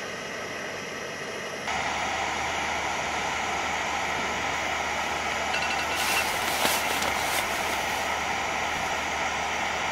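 Portable gas-canister burner fitted with a radiant heater dome, burning with a steady hiss that steps up a little louder about two seconds in.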